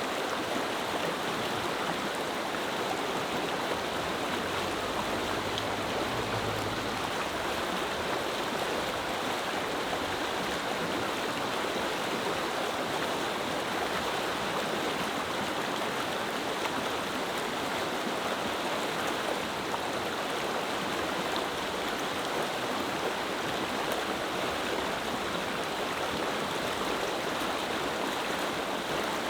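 Clear mountain river flowing over stones: a steady, even rush of water.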